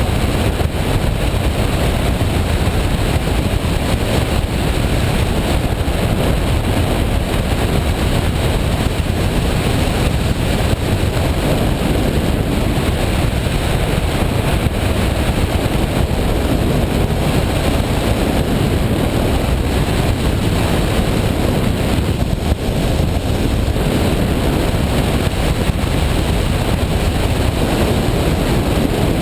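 Washing machine running: a loud, steady churning noise with a deep rumble underneath.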